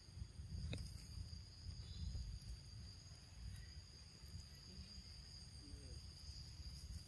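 Insects droning in a steady, high-pitched chorus, with a low rumble underneath and a single sharp click less than a second in.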